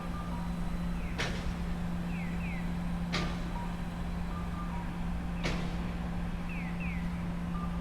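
A steady low machine hum with a sharp click about every two seconds, each followed by short electronic beeps and quick paired chirps.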